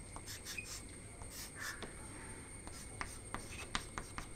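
Chalk on a blackboard: faint scratchy strokes and sharp little taps as lines are drawn, several in quick succession.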